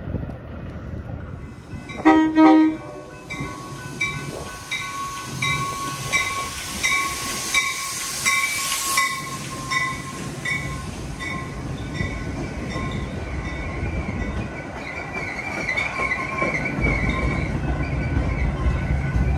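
Metra commuter train arriving: a short horn blast about two seconds in, then a bell ringing steadily about one and a half strokes a second while the bilevel cars roll past with wheel clatter.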